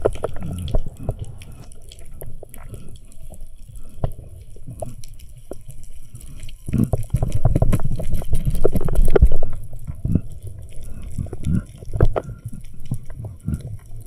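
Underwater recording of a freediver swimming up toward the surface: a low rumble and slosh of water moving past the camera housing, with scattered clicks and knocks, heaviest in the middle.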